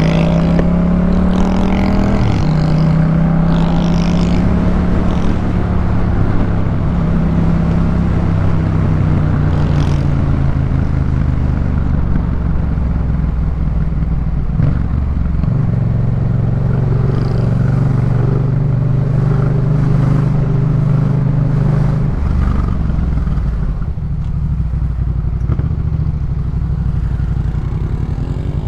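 Yamaha MT-07 parallel-twin engine through a Jeskap K4 full aftermarket exhaust, running while the bike is ridden. The engine note holds steady, stepping to a new pitch about two seconds in, again around the middle, and once more near the end, with wind and road noise underneath.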